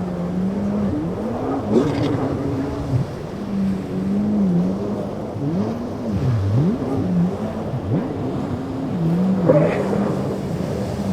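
Several powerboat engines running together, their pitch repeatedly dipping and rising as the throttles are worked.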